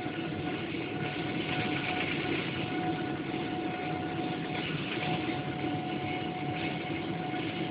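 Boeing 777-300ER's GE90 turbofan engines heard from inside the cabin as the aircraft rolls along the ground: a steady rushing rumble with a thin steady whine over it.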